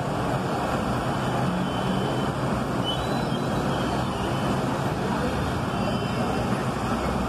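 Steady rush of floodwater pouring across a road and over a stepped embankment, with the hum of vehicle engines driving through the flooded street underneath.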